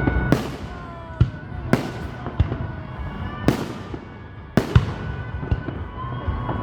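Aerial fireworks going off, about eight sharp bangs at uneven intervals, some in quick pairs, each followed by a brief crackling tail.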